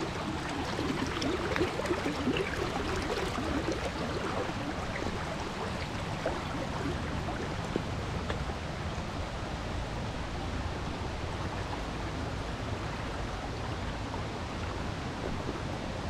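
Steady rush of flowing stream water, a little louder in the first few seconds.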